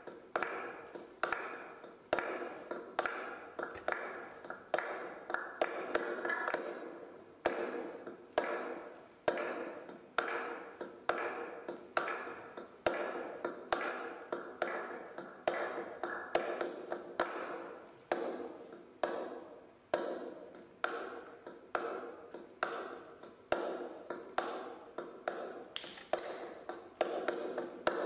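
Sparse accompaniment of struck, ringing notes, about two a second, each starting sharply and fading away before the next.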